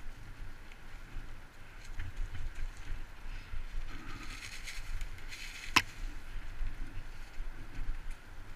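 Mountain bike ride on a leaf-covered dirt trail, heard through a camera carried on the ride: a constant low rumble and irregular knocks from the bumpy trail, a louder hiss for a second or so near the middle, and one sharp click a little after halfway.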